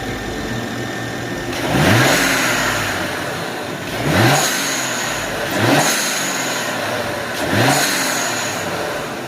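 Car engine idling and blipped four times. Each rev is followed by a burst of hissing air from a homemade blow-off valve venting, three of them with a thin high whistle in the hiss.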